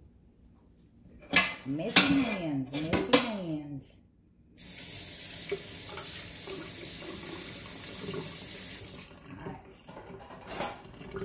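Kitchen faucet running steadily into the sink for about four seconds while messy hands are washed under it, then shut off.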